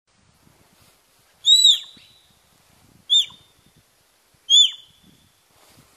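South China sika deer stag giving three high whistling calls, each rising briefly and then dropping sharply in pitch, the first the longest. These are rutting calls a stag makes to warn off rival males.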